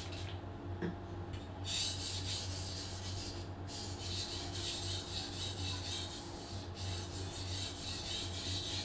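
Gyuto chef's knife blade being pushed in quick repeated strokes across a whetstone, a gritty scraping rasp. The strokes start about two seconds in and break off briefly twice. This is the second side of the edge being ground to raise a burr.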